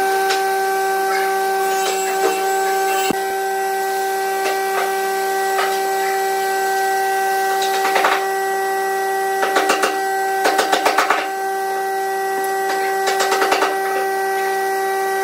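A workshop machine motor running with a steady whine. Over it, several short bursts of pencil scratching as lines are marked on a pine block, from about eight seconds in.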